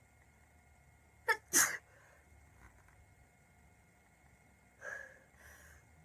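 A girl with a bad cold sneezing once, hard, about a second and a half in: a sharp in-breath, then the loud sneeze. A softer vocal sound follows near the end.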